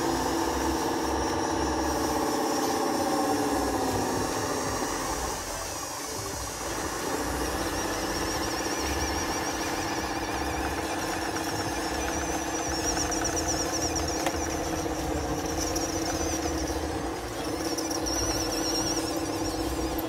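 Electric drive motors and gearboxes of an RC toy crawler bulldozer whining as it pushes dirt with its blade. The pitch slides down and the sound dips briefly about five or six seconds in, then it settles into a steady whine again.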